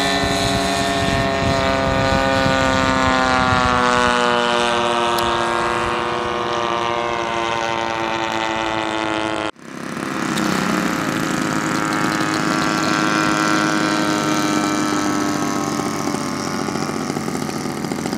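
Engines of radio-controlled scale model airplanes running on a runway. The first engine's note slides gradually lower. About halfway through, a sudden cut leads to a second model's engine with a fairly steady note as the plane taxis with its propeller turning.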